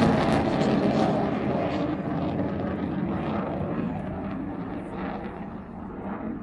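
Aircraft engine noise from a plane flying past, loudest at the start and fading steadily as it moves away.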